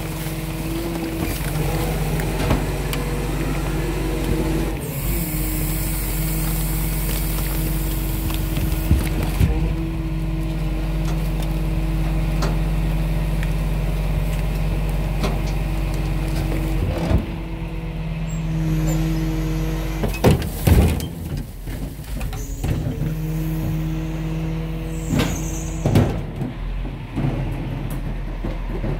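Garbage truck's hydraulic compactor crushing bagged diapers, the engine running at a raised steady speed to drive it. A hiss comes in about five seconds in and lasts about four seconds, and several metallic clanks and knocks follow in the second half as the packer works through the load.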